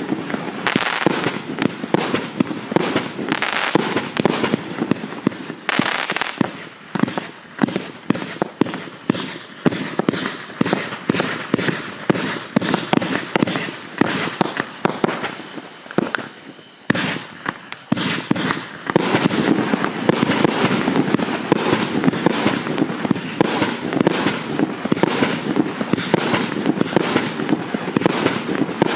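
A multi-shot fireworks cake firing in rapid succession: a dense stream of launch thumps, bursts and crackling stars. The volley thins out briefly past the middle, then picks up again into thick crackling.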